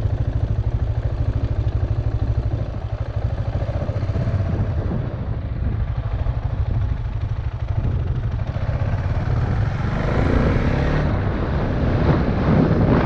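KTM Duke motorcycle engine running steadily at low speed, heard from the rider's helmet. From about ten seconds in, wind noise on the microphone builds as the bike picks up speed.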